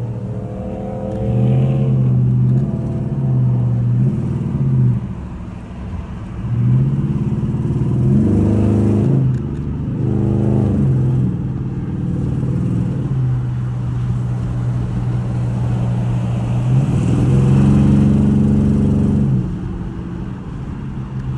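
Cammed 5.7 HEMI V8 in a Dodge Charger pulling on the freeway, heard from inside the car, its note climbing and dropping several times as it accelerates and shifts. The exhaust has a leak, which the driver calls insane and suspects is at the newly fitted long-tube headers.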